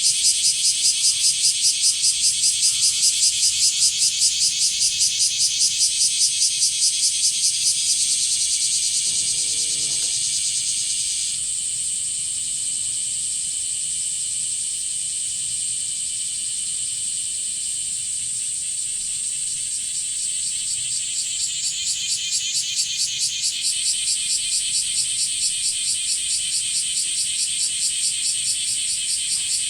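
Blackish cicadas (kumazemi) singing in chorus: a loud, high, pulsing buzz at about three to four beats a second that smooths into a steady drone for roughly ten seconds in the middle, then pulses again.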